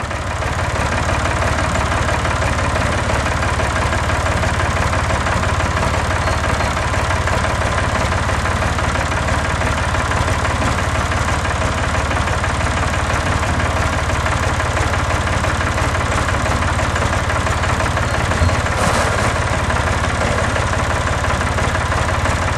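A motor engine idling steadily and loudly, without a break.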